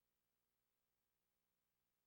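Near silence: only faint steady hiss and hum.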